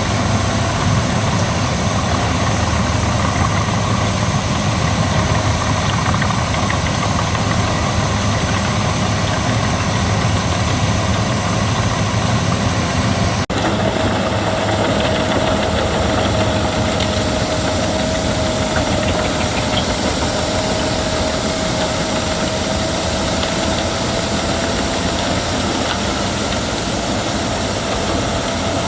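Albach Diamant 2000 wood chipper running steadily. About halfway through the sound changes abruptly, and a steady whine is heard from then on.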